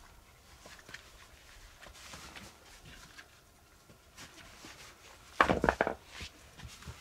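Faint scattered ticks and rustling, then a quick run of several sharp knocks about five and a half seconds in, with one smaller knock just after.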